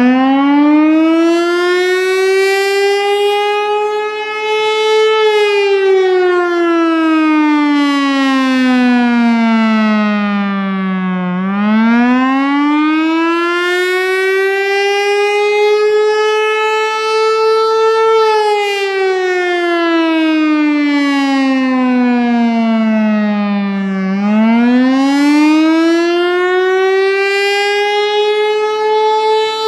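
Warning siren wailing in slow cycles: its pitch climbs for about six seconds, levelling off at the top, then slides steadily down for about six seconds. The cycle runs two and a half times over.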